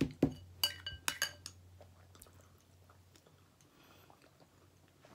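Metal spoon clinking and scraping against a ceramic bowl of mashed potato: a quick run of about five ringing clinks in the first second and a half, then quiet.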